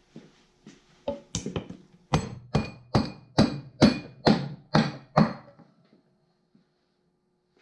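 A hammer striking the Farmall H's transmission top cover to break it free from the case. A few light taps are followed by about eight heavy, ringing blows, roughly two a second, which stop short of the end.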